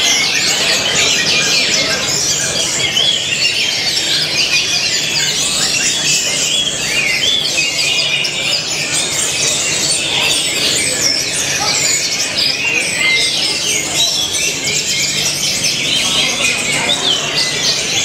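Caged orange-headed thrushes singing: a continuous, dense stream of quick, varied chirps and whistled notes.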